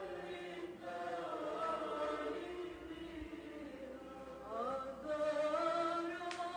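Background music: a slow vocal chant, voices holding long notes that glide from one pitch to the next.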